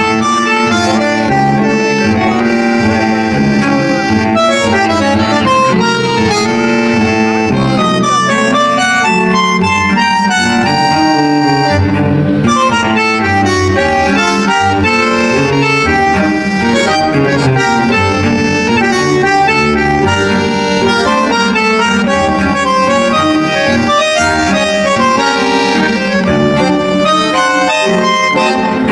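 Background music: a melodic instrumental tune.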